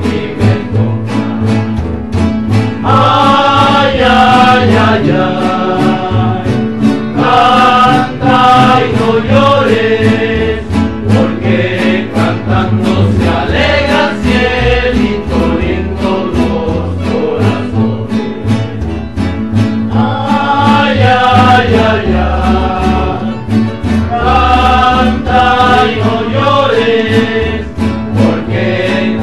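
A rondalla playing live: several strummed acoustic guitars and a double bass keep a steady rhythm while a group of men sing together.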